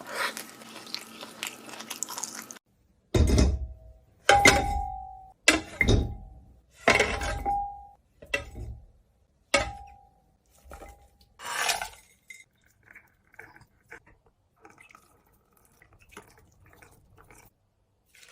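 Utensils knocking against a dish: about seven sharp clinks, several leaving a brief ringing tone, then a run of lighter taps.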